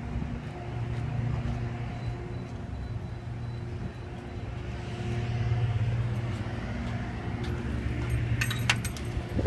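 A steady low mechanical hum, like a motor or engine running, with a few sharp clicks near the end as a glass door is handled.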